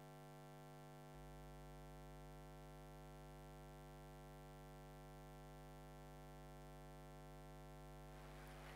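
Near silence: a faint steady electrical hum made of several even tones, with a faint rustle of noise near the end.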